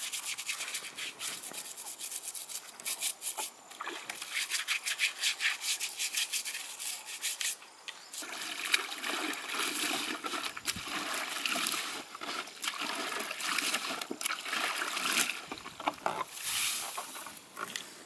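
Wet laundry being handled in plastic basins: cloth rubbing and squelching, with water dripping and splashing. Near the end a short rush of water as a basin is tipped out.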